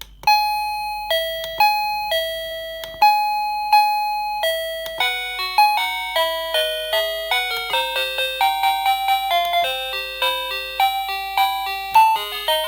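TECKNET wireless plug-in doorbell receiver playing its electronic chime tunes: a two-note high-low ding-dong repeated about four times, then, about four and a half seconds in, a quicker melody of many notes. Near the end a new tune starts after a brief break.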